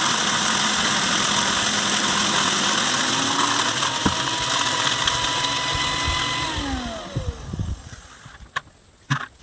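Electric wood chipper running loud while cracking whole corn, then switched off about six seconds in, its motor whine falling in pitch as it spins down. A few short knocks follow in the quiet.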